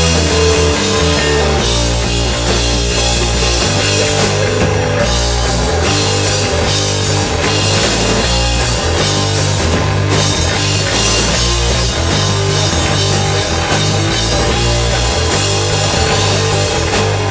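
A rock band playing live: an instrumental stretch with drum kit, guitar and a bass line moving between notes, steady and loud throughout.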